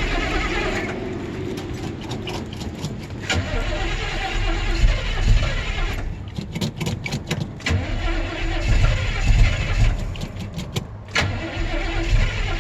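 1972 Chevy C10 pickup's engine hard-starting from cold: the starter cranks it over in three short spells, and in between the engine catches and runs roughly.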